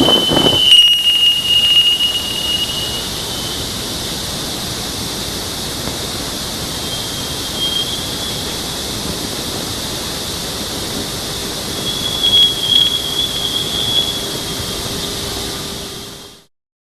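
Steady static hiss from NASA space-mission audio, with a thin high whistle over it for the first few seconds and again near the end; it fades out abruptly about sixteen seconds in.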